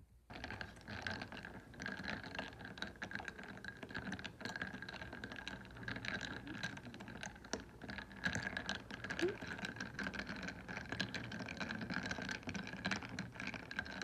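Ice cubes clinking against the inside of a ceramic mug of iced coffee as a metal spoon stirs them: a dense, continuous run of light clicks and clinks that starts just after the beginning.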